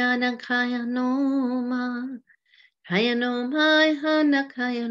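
A woman singing wordless, long-held notes in two drawn-out phrases, with a short break about two seconds in; her pitch wavers only slightly.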